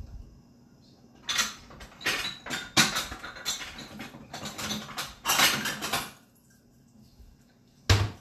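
Kitchen cupboards and dishware being rummaged through: a run of clattering knocks and clinks, then a quieter pause and one sharp knock near the end.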